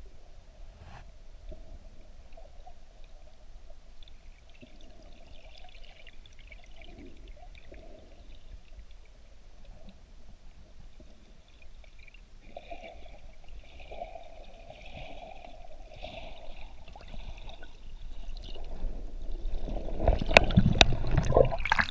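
Muffled water sloshing heard from a submerged camera, building near the end into loud splashing and knocks as the camera comes up toward the surface.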